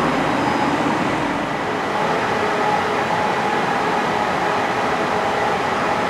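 Steady background noise with a faint, unchanging hum through it.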